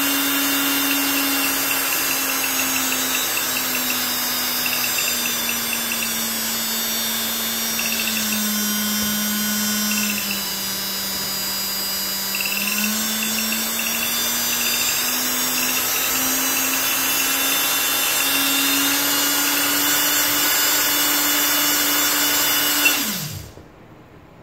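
Brushed DC motor running free off a bench power supply, a steady whine with hiss. Its pitch sinks as the supply voltage is turned down, then climbs back. Near the end the power is cut with a click, and the motor winds down to a stop.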